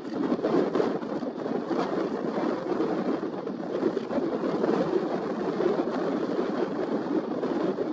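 Strong wind buffeting the camera's microphone: a continuous rushing noise that surges and dips.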